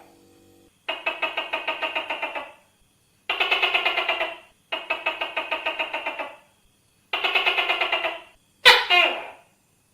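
Tokay gecko calling: four rattling calls of rapid pulses, about six a second, each lasting a second or more, then a sharp call falling in pitch near the end.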